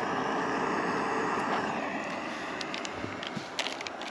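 Jetboil gas stove burner running with a steady hiss. A few light clicks and rustles from the coffee bag and steel pitcher come in the second half.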